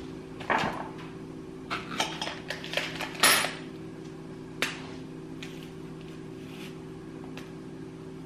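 Light kitchen-counter clatter: a run of small knocks and clicks of a utensil and items being handled, the loudest a little past three seconds in. After about five seconds only a steady low hum remains.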